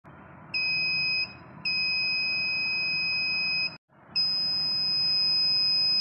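A small piezo buzzer on a homemade IR-sensor fire alarm sounds a steady high-pitched tone in three stretches: about a second, then about two seconds, then two more. It is set off by a match flame held near the sensor.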